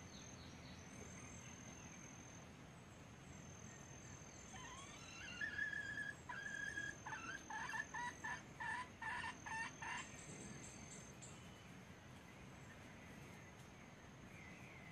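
Red junglefowl calling: a couple of drawn-out notes, then a quick run of short notes at about three a second, from about five to ten seconds in. A thin high steady tone comes and goes behind it.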